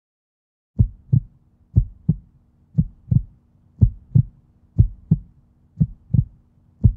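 Heartbeat sound effect: a slow, steady lub-dub of paired low thumps, about one pair a second, starting just under a second in. A faint, steady low hum lies underneath.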